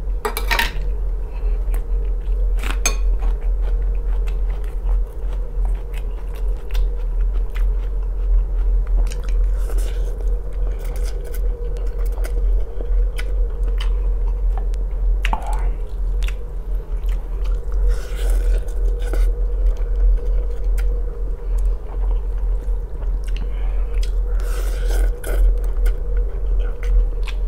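Close-up eating sounds: chewing, a spoon clinking and scraping in an open tin can, wooden chopsticks stirring instant noodles in a glass bowl, and noodles being slurped near the end. A steady low hum runs underneath.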